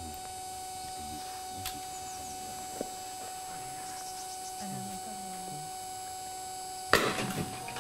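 Steady electrical hum, then about seven seconds in a single sharp bang from a butcher's captive bolt gun stunning a cow, followed by a brief clatter.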